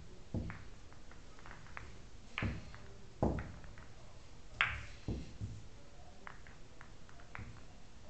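Pool balls set down on the table cloth by hand and clicking against one another as they are pushed together into a tight rack: irregular knocks and light clicks, with a few louder ones in the middle.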